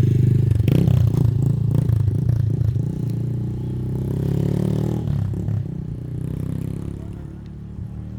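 A motor vehicle engine running with a steady hum, loud at first and growing quieter over the last few seconds, with some clattering knocks in the first couple of seconds.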